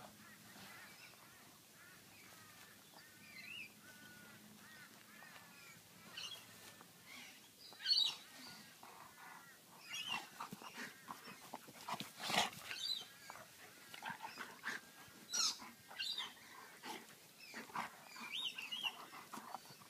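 German shepherd and Siberian husky puppy play-wrestling and vocalising. A string of wavering whiny calls comes in the first few seconds, then many short, sharp yips and play growls, the loudest about eight seconds in.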